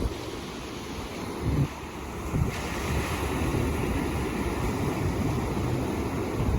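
Ocean surf breaking and washing on the shore, with wind buffeting the microphone in low thumps. About two and a half seconds in, a brighter hiss of washing water rises and holds.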